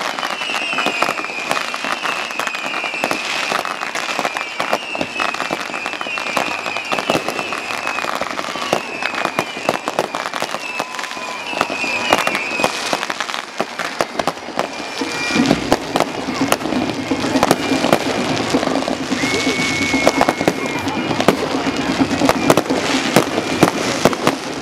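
Aerial fireworks going off in a dense, continuous barrage of bangs, pops and crackles. High warbling whistles repeat through the first half, and a low steady drone joins about halfway.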